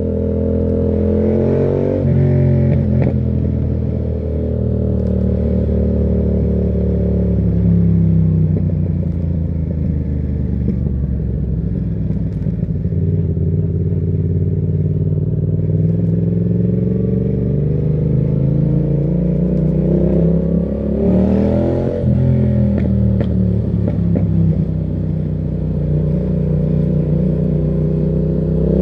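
Yamaha MT-07 parallel-twin engine through a Termignoni exhaust, running under way. The revs rise briefly near the start, fall away over several seconds, then build steadily to a peak about three-quarters through, drop sharply, and climb again at the very end.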